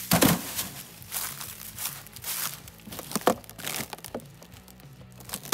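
Footsteps crunching and rustling through dry fallen leaves: a string of uneven crunches, the loudest about a quarter second in.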